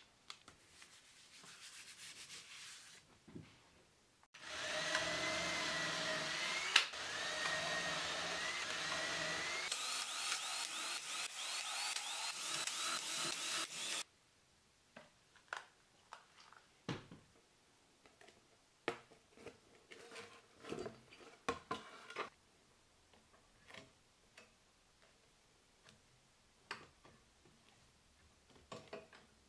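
Cordless drill running as it bores holes through a paper-covered wooden board, for about ten seconds in two spells, its motor whine wavering in pitch. After it stops, scattered light clicks and taps of small metal parts being handled, as a scroll saw blade is fitted in its clamp.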